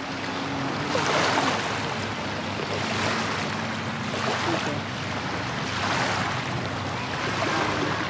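Small waves lapping and washing onto a sandy riverbank, surging about every two or three seconds, with a faint low steady hum underneath.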